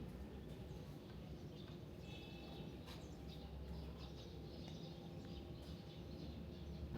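Quiet background ambience: a low steady rumble with a few faint bird chirps about two to three seconds in.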